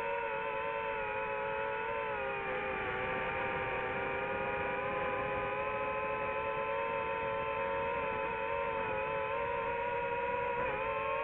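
FPV quadcopter's motors and propellers whining steadily in flight, several close tones drifting slightly in pitch, with a brief dip about two seconds in and another near the end.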